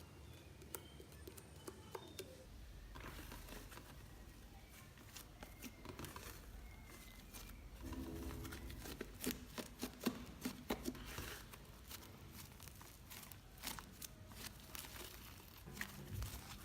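Crunchy, bubbly slime being squeezed and pressed by hand, its trapped air bubbles popping in faint, irregular crackles that grow denser about eight seconds in.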